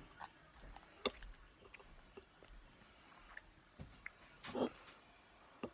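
Quiet mouth sounds of a person eating: a few sharp clicks and smacks from chewing and swallowing, with one short louder mouth sound a little past the middle.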